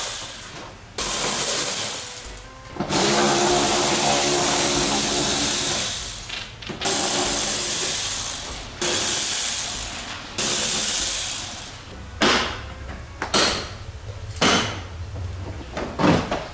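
A power driver runs in several short bursts, backing out the screws that hold a car's front bumper. Near the end come sharp plastic clicks and knocks as the bumper's side clips are pulled free.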